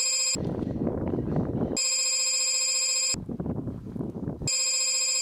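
Telephone ringing in bursts of about a second and a half, with a stretch of crackling noise between the rings.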